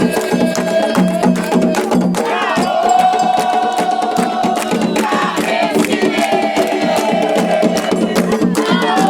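Candomblé ritual music: several voices sing a chant in long held notes over fast, dense drumming and struck percussion.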